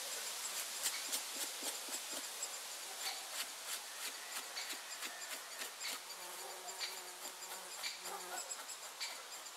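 A knife blade scrapes a wet hide in a run of short, repeated strokes, fleshing off membrane remnants before tanning. An insect buzzes close by for a couple of seconds past the middle.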